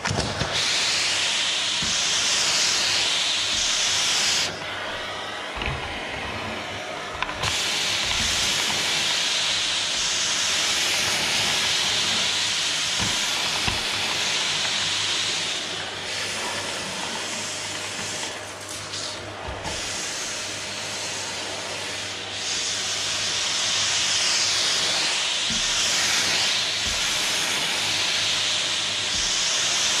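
Canister vacuum cleaner running, a steady high suction hiss over a low motor hum as the floor nozzle is pushed across a hardwood floor. The hiss dulls for a few seconds about four seconds in, and swells and dips as the nozzle moves, with occasional dull knocks of the nozzle.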